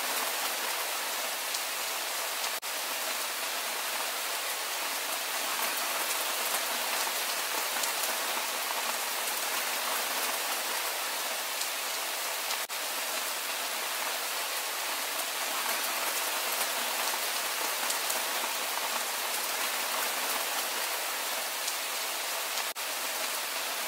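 Steady, even rain falling, a continuous hiss of many drops, with a brief dip in level about every ten seconds.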